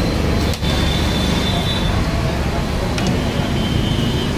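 Moong pakodas deep-frying in a large kadhai of hot oil: a steady loud bubbling noise with a heavy low rumble under it, and two sharp clicks, about half a second and three seconds in.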